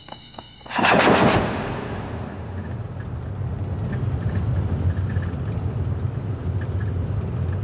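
A sudden loud bang about a second in that dies away over the next second, then the steady low rumble of a military truck running, heard from inside its canvas-covered back.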